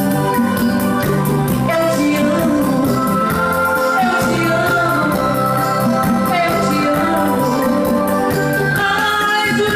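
A live band playing with a singer over a steady beat.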